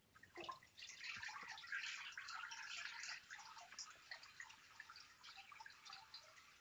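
Faint water draining and dripping through the mesh of a 3D-printed papermaking mold lifted out of a tub of paper pulp, falling back into the vat. The dripping is densest about a second in and thins to scattered drips toward the end.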